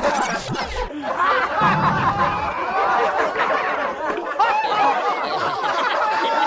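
Several people laughing and giggling together, a dense overlapping chatter of laughs.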